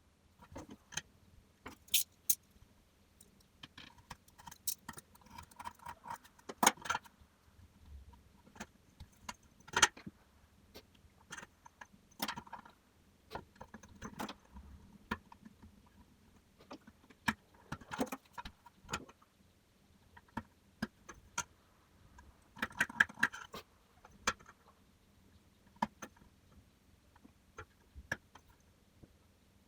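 Scattered light clicks, taps and short rustles of hand work at a bench: a metal ruler and an awl are being picked up, set down and moved over a piece of leather while a design is marked out. A few clicks are sharper and louder, and there are brief rustly patches in between.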